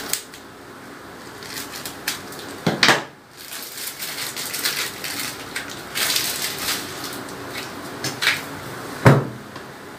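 Crinkling and rustling of a food wrapper being cut open and handled on a kitchen counter, with scattered light clicks and clatter. Two louder knocks come about three seconds in and near the end.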